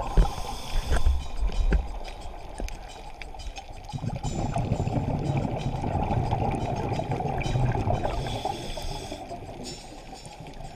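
Muffled underwater sound heard through a GoPro's waterproof housing: a low rumble and gurgle of water and scuba bubbles that swells and fades, with scattered small clicks.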